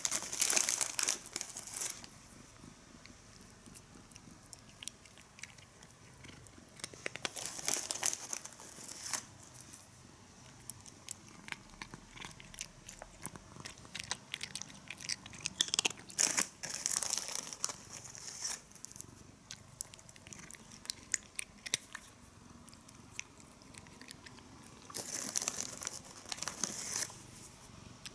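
Cat eating food out of a person's palm: close-up chewing made of many sharp crunchy clicks. It comes in four louder spells of a couple of seconds each, with quieter, sparser chewing between them.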